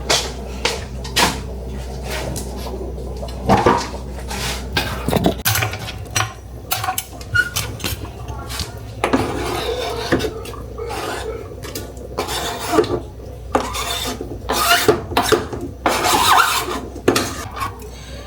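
Kitchen clatter: metal utensils and cookware knocking and scraping in irregular clinks and taps. A low steady hum stops about five seconds in.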